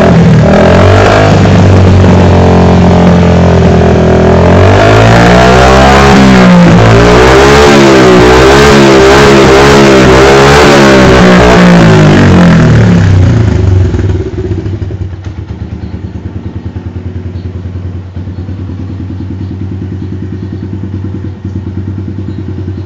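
Single-cylinder four-stroke Yamaha motorcycle engine being revved hard, the throttle blipped up and down over and over. About 14 seconds in it drops back to a steady idle.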